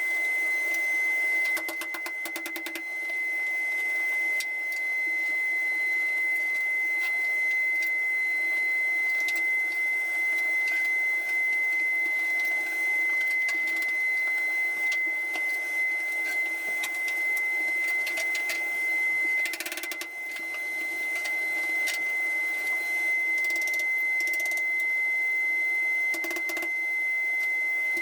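A small electric motor running steadily with a constant high whine, with scattered light clicks.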